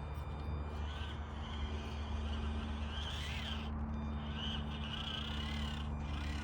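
Several short, wavering animal cries, one about a second in, another around three seconds and a longer run near the end, over a steady low hum.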